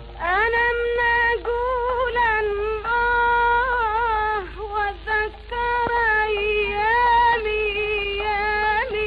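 A woman singing a long, ornamented line of an old Iraqi traditional song. She slides up into a held note and sustains it with wavering turns, breaks off briefly twice about halfway, and slides upward again near the end.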